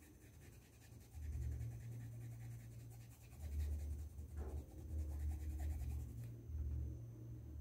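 Small paintbrush stroking acrylic paint onto a cotton dish towel: soft brushing and scratching, with dull low bumps coming and going as the hand works.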